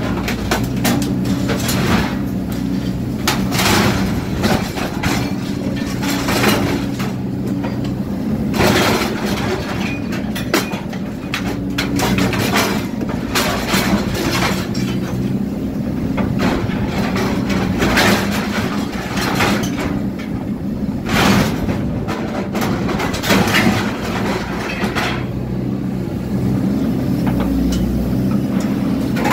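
Excavator's diesel engine running steadily under hydraulic load while its shear attachment crushes and cuts roo bars (vehicle bull bars) in a skip bin, with repeated sharp cracks, crunches and clanks of bending and snapping metal.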